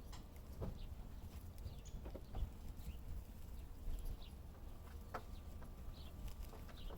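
Scattered light clicks and knocks, with a few brief high chirps, over a steady low rumble.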